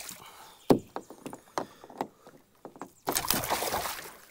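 A hooked musky thrashing at the side of a kayak: a few sharp knocks and taps against the hull, the loudest about three-quarters of a second in, then a burst of splashing from about three seconds in.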